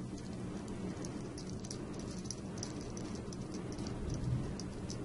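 Faint, scattered light clicks of small metal parts as fingers turn the small locking nut that holds the lock lever on a key lock cylinder, over a steady low hum. A soft bump comes about four seconds in.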